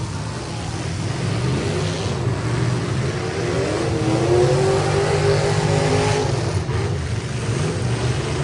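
Demolition derby pickup truck engines running hard, one revving up in a rising pitch about three seconds in and holding high before dropping back near six seconds.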